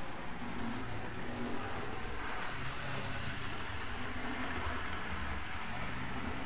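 HO scale model trains running on the layout: a steady whir of small motors and wheels on the rails.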